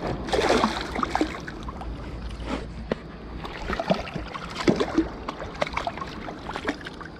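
Water splashing and sloshing, loudest about half a second in, with scattered small knocks and clicks throughout.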